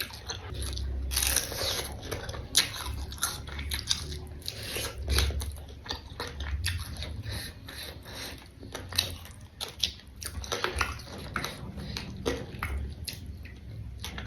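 Close, wet chewing and crunching of crisp food, with irregular crunchy bites throughout.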